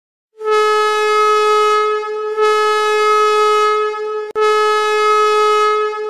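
Hockey arena goal horn sounding three long blasts of one steady tone, each about two seconds long with only short breaks between them.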